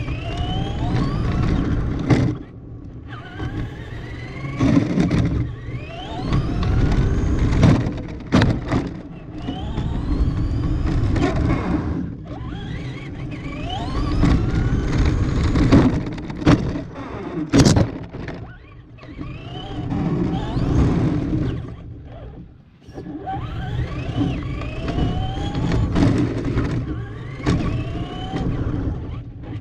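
Traxxas RC car heard from a camera mounted on the car: its motor and drivetrain whine rises in pitch again and again as it accelerates in repeated runs, over the rumble of its tyres on concrete. Several sharp knocks from hard landings or impacts break in, the loudest past the middle.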